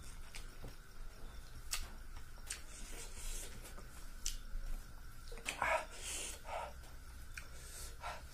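Close-up eating sounds of rice and fish curry being chewed, with sharp wet mouth clicks scattered throughout. About five and a half seconds in comes a louder, sharp breath.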